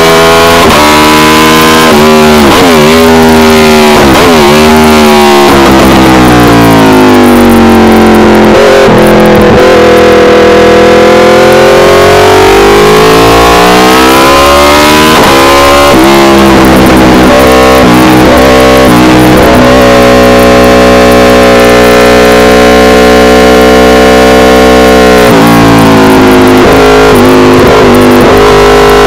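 Aprilia RSV4 Factory's V4 engine through an SC Project CRT exhaust at race pace, loud throughout. Its pitch sweeps up under hard acceleration and drops sharply on downshifts for corners, with quick rev drops a few seconds in and again near the end.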